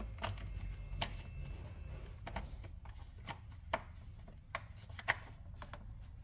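Plastic air intake duct being pushed and worked onto the throttle body by hand: scattered clicks, knocks and rubbing, the sharpest about a second in and three more from the middle to near the end.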